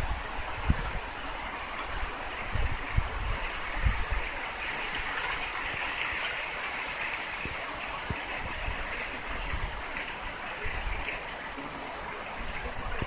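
Typhoon wind and rain heard through a narrow gap in an apartment window: a steady rushing noise, swelling slightly midway, with a few short low rumbles, the strongest about four seconds in.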